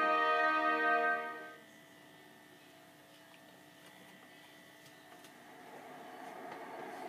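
A held chord of bumper music fades out about a second and a half in, leaving only a faint hiss. Over the last couple of seconds a noisy background ambience slowly fades up.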